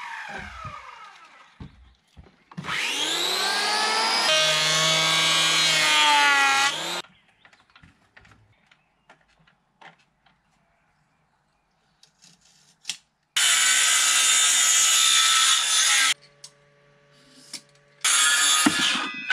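Handheld circular saw trimming the ends of bent laminated wood beams in short runs. Its motor whine rises as it spins up, then comes about four seconds of cutting. Scattered clicks and knocks follow, then two more short loud runs, the second near the end.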